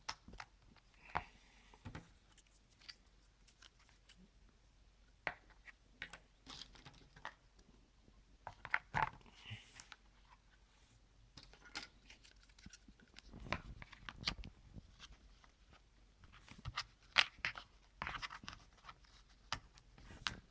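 Cardboard jigsaw puzzle pieces being handled and pressed into place in a puzzle book: scattered light clicks, taps and short scrapes at irregular intervals.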